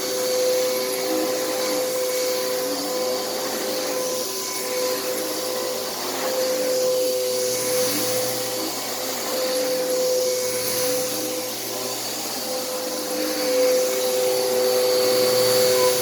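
Bissell CleanView bagless upright vacuum cleaner running on carpet: a steady motor hum with a constant whine, swelling slightly as it is pushed back and forth.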